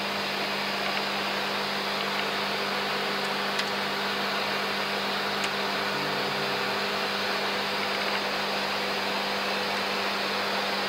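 Steady flight-deck noise of an Airbus A330 in the climb: an even rush of air with a low steady hum beneath it.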